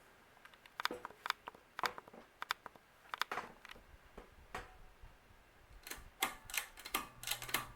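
Scattered sharp clicks and ticks from a Harbor Breeze Sienna ceiling fan and its controls, coming thicker near the end as the fan is switched from low to medium speed, with a faint low motor hum coming in at the end.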